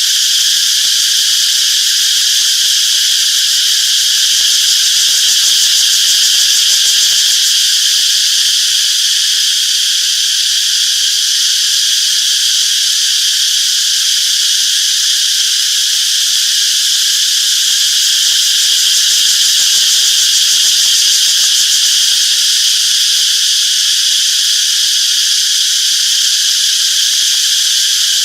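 Chorus of cicadas: a dense, steady, high-pitched buzz that holds level without a break.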